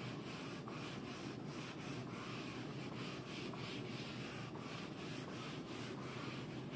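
Handheld whiteboard eraser wiping across a whiteboard in repeated back-and-forth strokes: a soft, faint rubbing swish about two to three times a second, stopping at the very end.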